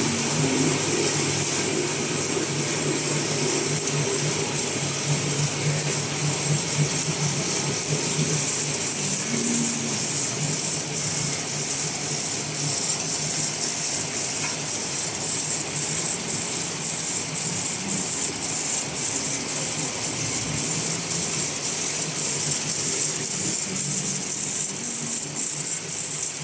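Automatic cutlery packaging machine running idle, without product, on its stability test: a fast, even mechanical clicking over a steady hum.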